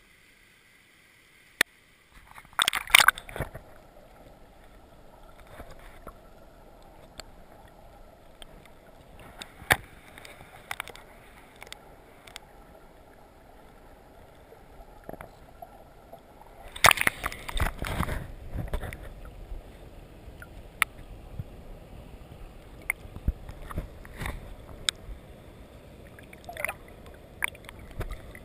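Water sloshing and gurgling as heard by a camera held underwater in a shallow stream, muffled, with scattered sharp ticks and knocks. Two louder splashy stretches stand out, one about three seconds in and a longer one about seventeen seconds in.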